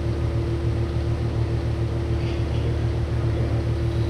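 Steady low machine hum with a constant higher tone above it, unchanging throughout.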